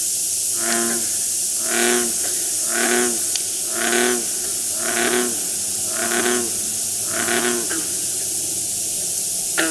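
A frog giving a snore-like call seven times, about one every second, each a short pitched croak, over a steady hiss. A brief sharp click comes near the end.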